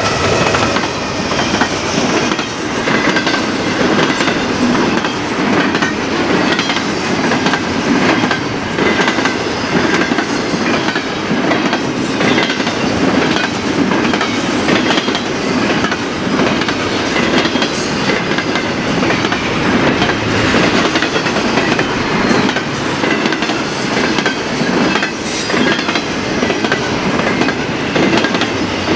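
Freight train cars rolling past, a steady rumble of wheels with clickety-clack on the rails.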